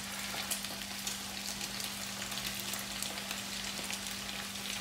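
Batter-coated chicken pieces deep-frying in hot oil: a steady sizzle full of small pops and crackles.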